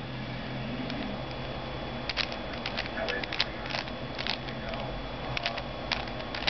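3x3 Rubik's cube turned one-handed, its plastic layers making a scattered series of short sharp clicks from about two seconds in, over a steady low hum.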